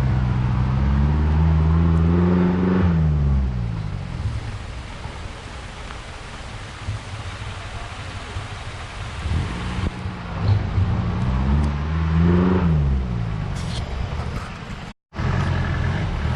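Off-road 4x4's engine revving hard twice: the pitch climbs and falls over the first few seconds, settles to a lower, quieter run, then climbs and falls again about ten seconds in. The sound cuts out briefly near the end.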